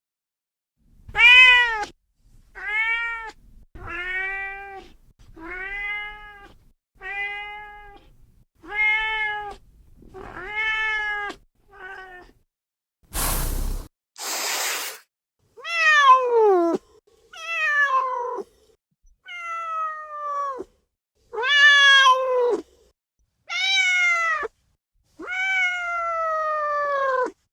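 Cat meowing: about eight short meows that rise and fall in pitch, then two short bursts of noise, then a run of longer meows that slide downward in pitch, the last one drawn out.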